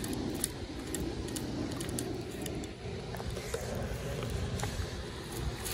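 Low rumbling handling noise from clothing rubbing over the microphone, with a few faint ticks.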